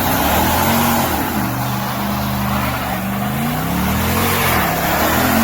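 Car engine running loudly, its pitch falling and rising several times as it revs, over a steady rushing hiss.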